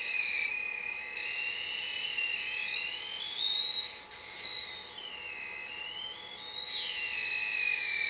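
High-pitched electronic whine from a homemade frequency-driven oscillator device lighting a fluorescent tube, several whistling tones together whose pitch slowly wanders up and down.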